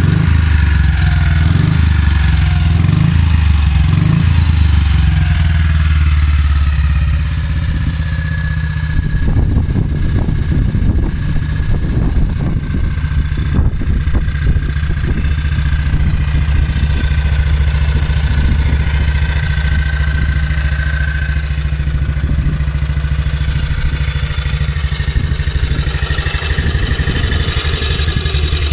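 1952 Ariel Colt's 200cc single-cylinder four-stroke engine running at a steady idle, a little louder for the first seven seconds or so before settling.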